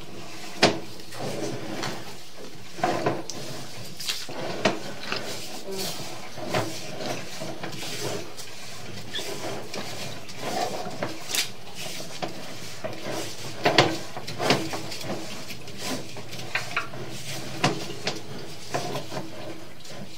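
Sewer inspection camera's push cable being pulled back out of the line and into its reel, with irregular clattering knocks and clicks over a faint steady hum.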